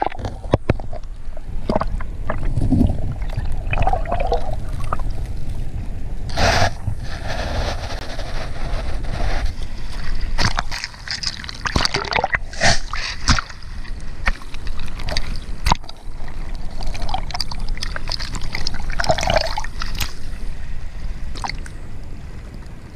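Water sloshing and gurgling, heard through a camera held under the water of a rocky tide pool, with scattered sharp clicks and a few louder surges.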